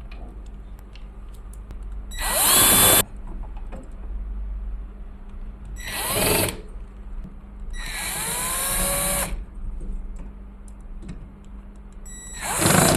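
Power screwdriver running in four short bursts as it backs out the screws, its whine gliding in pitch as the motor speeds up and slows with each run.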